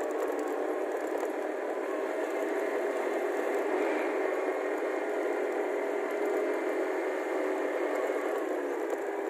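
Motorcycle tricycle's engine running steadily while under way, heard thin with no bass.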